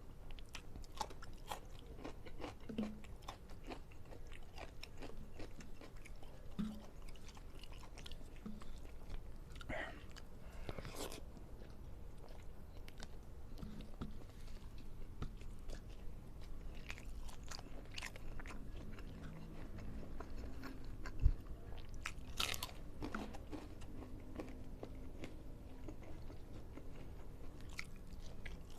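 Close-up eating sounds: a person chewing and biting with wet mouth clicks, smacks and occasional crunches, with a single louder knock about 21 seconds in.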